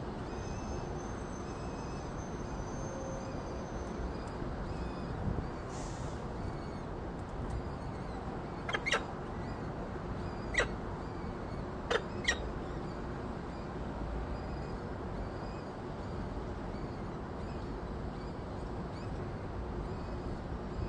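Steady rushing background noise from a nest-box microphone, broken about halfway through by five short, sharp clicks, two pairs close together and one on its own.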